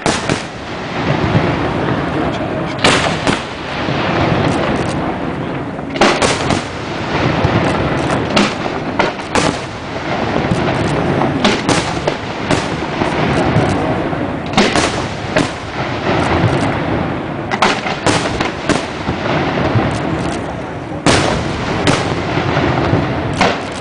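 Fireworks display: aerial shells bursting in sharp bangs at irregular intervals, often two or three in quick succession, over a continuous dense rumble of firework noise.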